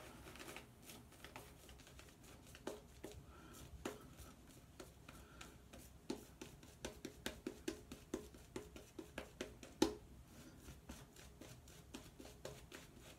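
Shaving brush working lather on the face: faint, soft wet strokes. They quicken to about three a second in the middle, with one louder stroke just before the end.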